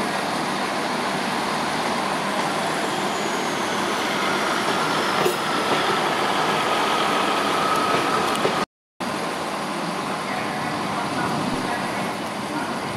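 DB Cargo Class 66 diesel-electric locomotive, with its two-stroke EMD engine, running steadily as it approaches hauling a freight train of box wagons. A faint high tone falls in pitch about three seconds in, and the sound cuts out for a moment about nine seconds in.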